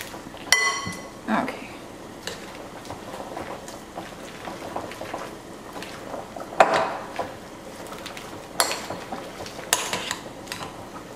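Spinach leaves being stirred into a thick creamy mixture in a glass mixing bowl, with soft wet handling noise and several sharp clinks of a spoon against the glass, the first ringing briefly.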